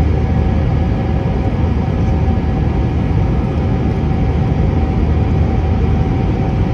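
Steady cabin noise of a jet airliner climbing after takeoff: a deep rumble of the turbofan engines and rushing air, with a few faint steady whining tones above it, heard from a window seat over the wing.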